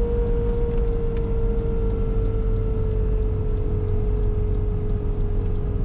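Lotus Esprit V8's twin-turbo engine heard from inside the cabin, cruising with a steady note that sags slightly in pitch over low road rumble. A faint regular ticking runs alongside.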